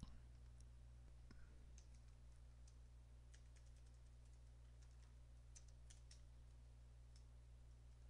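Near silence: a mouse click, then faint computer-keyboard typing, with scattered soft key clicks over a low steady hum.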